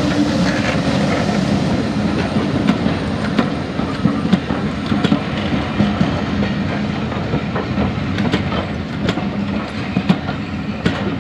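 Green railway passenger coaches rolling past close by: a steady rumble of wheels on the track with sharp clicks as the bogies cross the rail joints.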